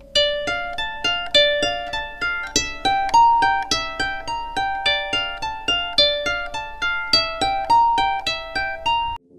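Background music: a wordless instrumental passage of quick, evenly spaced notes, each starting sharply and fading, that cuts off abruptly near the end.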